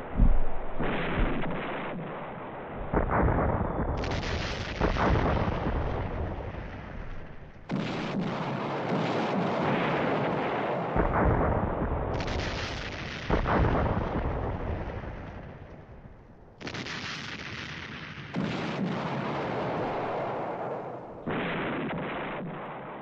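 Battle sound effects: a dense, rumbling din of gunfire and booms with irregular sharp shots. It changes abruptly every few seconds.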